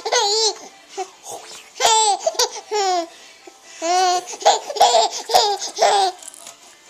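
High-pitched, laughter-like squeals in about seven short bursts, each wavering in pitch, with short quiet gaps between them.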